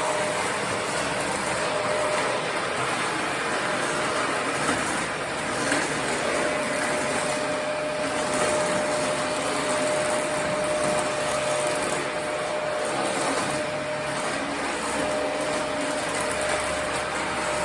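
Vacuum cleaner running steadily, a constant rushing noise with a thin whine through much of it.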